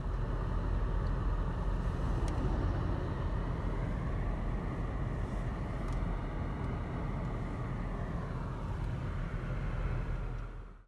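Car running, a steady low rumble that stops abruptly near the end.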